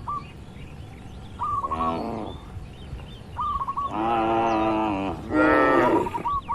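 Cattle mooing: a short moo about two seconds in, then a long, steady moo at about four seconds followed straight away by another. Between the moos a small bird chirps in short, quick phrases of a few notes, again near the end.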